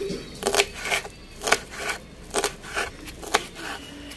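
Kitchen knife chopping fresh mint leaves on a wooden board, about two cuts a second.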